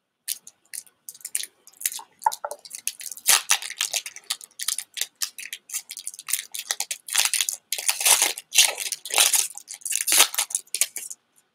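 The foil wrapper of a Pokémon booster pack crinkling and tearing as it is opened by hand: a long run of irregular, crisp rustles and rips that stops shortly before the end.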